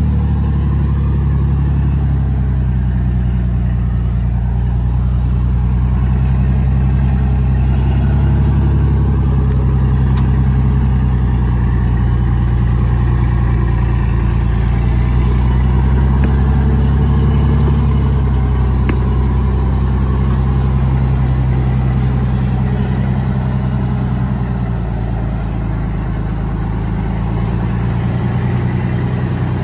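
Engine of a modified timber-hauling truck running steadily and loudly. Its pitch drifts down and up a little, with a slight easing about three-quarters of the way through.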